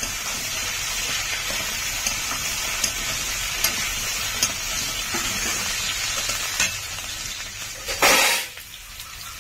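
Potatoes, snake gourd and slit green chillies sizzling in hot oil in a pan as they are stirred, with the spatula clicking against the pan now and then. About eight seconds in there is a short loud rush of noise, and after it the sizzle is quieter.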